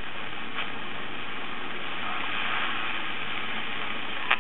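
Steady shortwave static hissing from a Kaide KK-848 pocket radio's small speaker as it is tuned up through empty frequencies toward 15 MHz, with no station coming in. A faint click about half a second in and a sharp click near the end.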